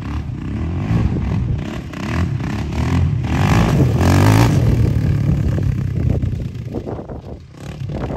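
Yamaha Raptor 660R ATV's single-cylinder four-stroke engine running and revving in swells, running well after a starter clutch repair and carb clean. It grows fainter after about six seconds.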